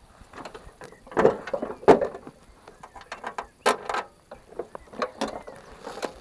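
Jawa 50 type 21 Pionýr moped being kick-started: several kicks in a row, each a ratcheting clank of the kickstart mechanism, with the small two-stroke engine not catching.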